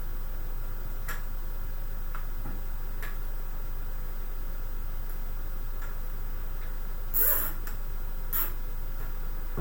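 Hands working on parts inside a desktop PC case: a few faint light clicks, then two louder clattering handling sounds about seven and eight and a half seconds in, over a steady low hum.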